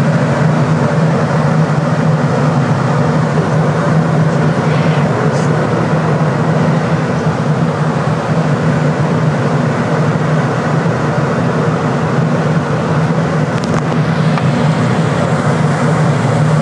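Steady airliner cabin noise in flight: a constant drone of engines and airflow with a low hum underneath.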